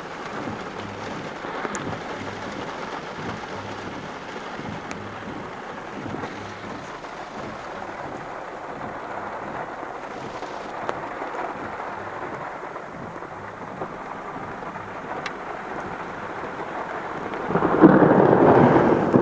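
Heavy rain falling steadily, with a loud rumble of thunder swelling up near the end.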